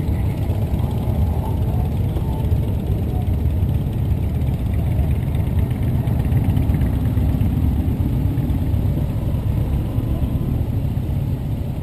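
Motorcycle engine running at low speed close to the microphone: a deep, steady rumble.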